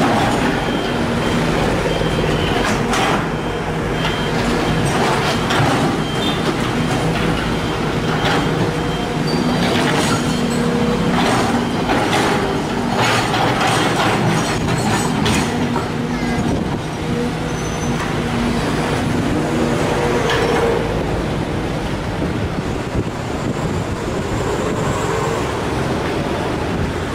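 Sumitomo SH210 hydraulic excavator's diesel engine running steadily under load while the bucket digs soil, with many knocks and scrapes of the bucket and rocks over the first half or so.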